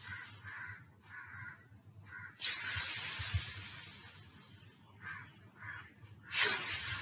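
A person demonstrating the phonic sound of the letter F: long, breathy "fff" hisses of air pushed between the upper teeth and lower lip. There is one of about two seconds in the middle, and another starts near the end.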